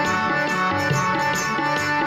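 Instrumental kirtan music: tabla drumming in a steady rhythm under sustained held notes.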